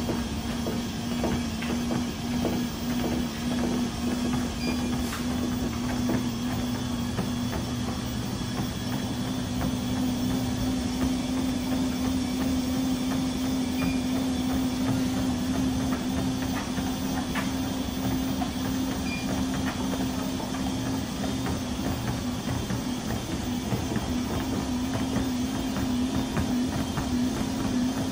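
K-Mill 360 multi-directional treadmill prototype running under a walker: a steady motor hum over the rumble of the moving belt, with footsteps on the belt.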